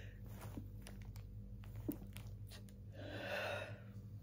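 A woman holding back a sneeze with a finger under her nose: quiet breathing with a few faint clicks, then one short, noisy breath through the nose about three seconds in.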